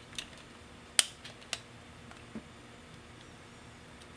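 Small clicks and taps from handling an Ihagee Exakta VxIIb's open film chamber while seating 35mm film on the sprocket. One sharp click comes about a second in, with a few lighter clicks after it and a soft knock a little past the middle.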